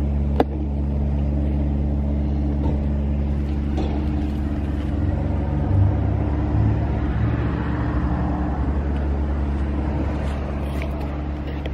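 A vehicle engine idling steadily, heard as a continuous low hum, with a single sharp click about half a second in.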